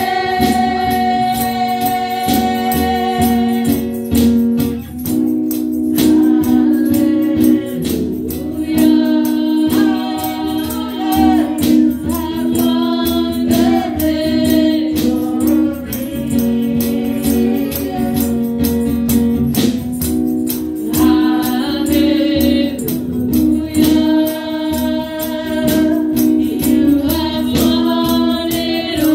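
Live gospel worship song: a woman's lead vocal sung through a microphone, with a second singer's voice, held chords underneath and a steady percussion beat.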